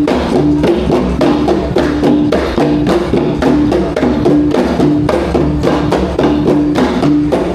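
Traditional Bornean ensemble music: Iban gendang pampat drums beating a quick, steady rhythm under a sape, the Kayan plucked lute, repeating a short melodic figure.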